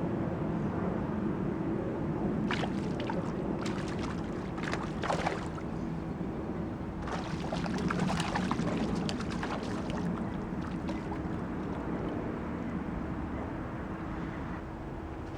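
River water rushing steadily, with scattered short clicks and knocks.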